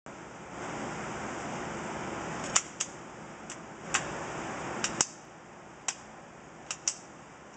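A steady hiss with a string of sharp, irregular clicks, about nine in all, starting about two and a half seconds in.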